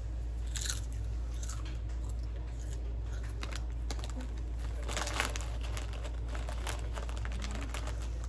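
Crunching of a Lay's Classic potato chip being bitten and chewed: irregular crisp crackles, the loudest cluster about five seconds in. A steady low hum runs underneath.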